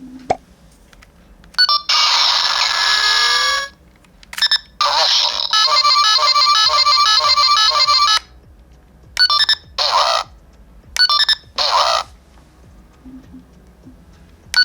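Electronic sound effects from the Bandai DX Delta Gear toy transformation belt's speaker: a short blip, a sound effect with a falling glide about two seconds in, a repeating beeping tune for about three seconds, then four short beeps.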